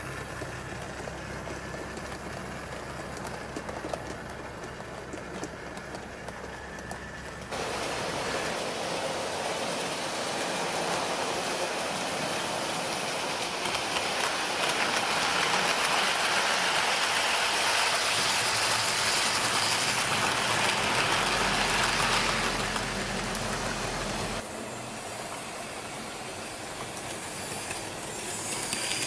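Model trains running on track, wheels rolling and clattering over the rails. The sound jumps abruptly louder and brighter about a quarter of the way in, peaks in the middle, and drops back suddenly near the end.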